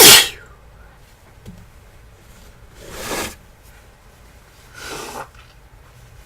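A person sneezing hard once with a cold and fever, a sharp explosive burst right at the start, followed by two quieter breathy sounds about three and five seconds in.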